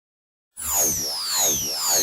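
Silence, then about half a second in an electronic sweeping sound effect begins: several high tones slide slowly downward while lower tones swoop up and down in repeated arcs.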